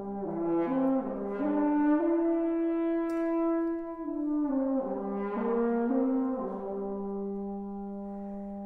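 Brass quintet of two trumpets, French horn and two trombones playing sustained chords whose upper voices step to new notes a few times, settling on a long held chord for the last couple of seconds.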